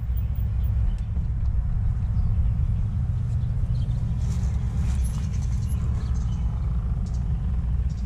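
Wind buffeting a helmet-camera microphone: a steady low rumble while the Gogoro electric scooter moves slowly along the path.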